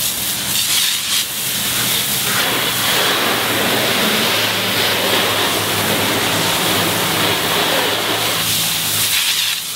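Garden hose spray nozzle spraying a steady stream of water onto a car's paintwork, rinsing the wash shampoo off the body panels.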